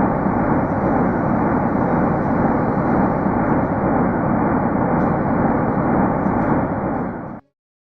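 A steady, dense rushing rumble with nothing in the upper treble, played as NASA's purported recording of a sound from space. It starts suddenly and cuts off abruptly about seven seconds in.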